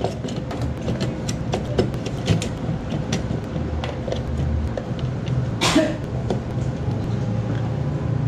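Small clicks and taps of hard plastic printer parts, the ink-tank frame of an HP Smart Tank 500-series printer, being handled and seated by hand over a steady low rumble. About two thirds of the way through there is one brief, loud hiss.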